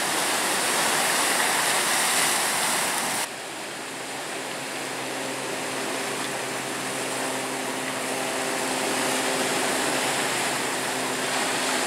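Steady rush of ocean surf breaking and washing onto the beach. About three seconds in it abruptly drops quieter, and a faint steady hum sits under it through the rest.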